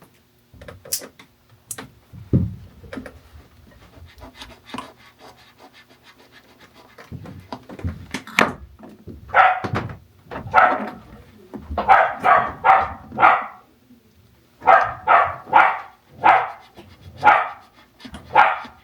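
A dog barking in quick runs of three or four barks through the second half, after a few scattered clicks and knocks.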